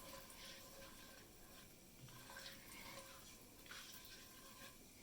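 Faint, soft scrapes of a spatula stirring whole spices and turmeric in a pan on the stove, in a few short strokes over a near-silent background.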